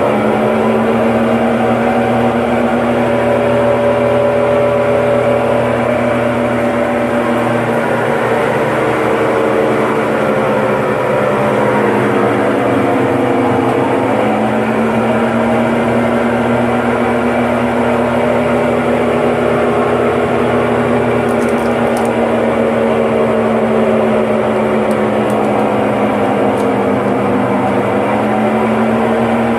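Washing machine drum spinning with a loud, continuous hum whose pitch sags about twelve seconds in and then climbs back up. The noise is typical of a worn drum bearing and seal.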